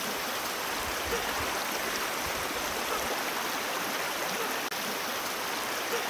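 Mountain valley stream flowing, a steady, even rush of water.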